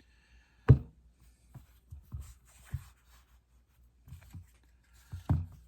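Knocks and clicks of the field-stripped Glock 19's parts being handled and set down on a work surface: a sharp knock about a second in, a few lighter taps after, and another knock near the end.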